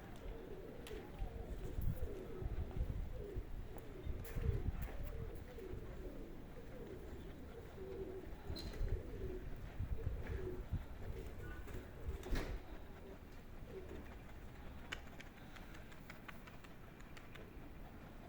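Domestic sickle-winged pigeons cooing over and over, with wind buffeting the microphone in gusts.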